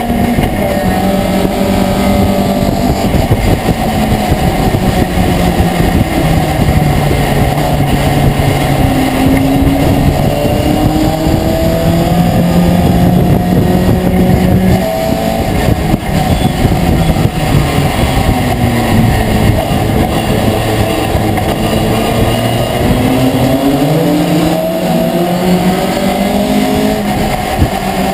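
Racing pickup truck's engine heard from inside the cab at racing speed, its pitch climbing through each gear and dropping back at every upshift.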